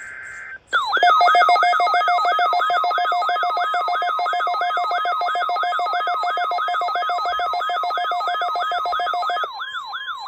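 Electronic emergency alert tones on a weather radio broadcast: layered beeps with a falling sweep repeating about three times a second over steady tones. They start just under a second in, after the tail of a SAME digital header data burst. About a second before the end the steady tones drop out and only the sweeps go on.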